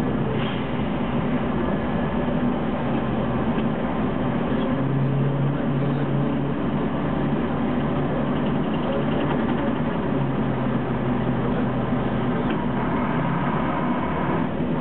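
Ikarus 280 city bus's diesel engine running steadily while the bus is under way, with tyre and body noise; the engine note shifts about four and a half seconds in.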